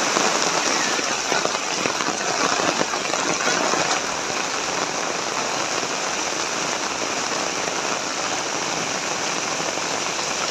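Heavy rain falling steadily, a dense even hiss of drops on surfaces, with more spattering in the first few seconds.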